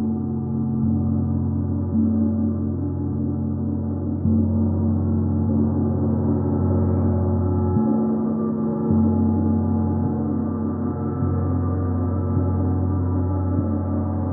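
Gong played as a sustained, dense wash of many overlapping tones, kept sounding without distinct strikes. Its low tones shift every second or two.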